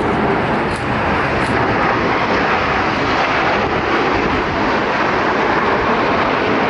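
Steady jet engine noise from a nine-plane formation of Canadian Forces Snowbirds CT-114 Tutor jets flying past, with no clear pitch and no change in level.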